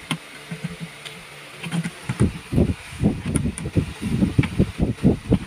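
Pliers working inside the top of a spa blower motor's plastic housing: a few light clicks, then from about two seconds in a fast, irregular run of knocks and rattles.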